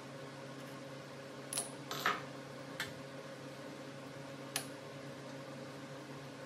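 A handful of light metallic clinks from hand tools and loose bolts while the transmission side cover of a Harley-Davidson Dyna is being unbolted, the loudest about two seconds in, over a steady faint hum.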